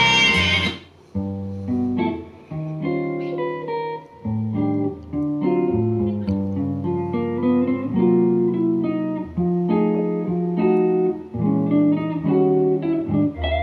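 Guitar music played back over floor-standing hi-fi loudspeakers driven by a Luxman amplifier: a plucked guitar piece, notes picked one at a time, beginning about a second in after a louder, fuller passage breaks off.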